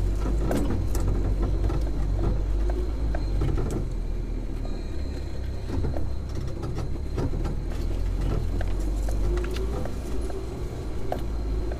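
Inside the cab of a solid-axle-swapped Suzuki Vitara driving slowly along a rough dirt track: a steady low engine drone with frequent clicks and knocks throughout.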